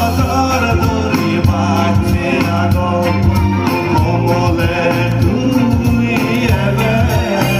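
Music: a song with singing over a steady bass line, with no break.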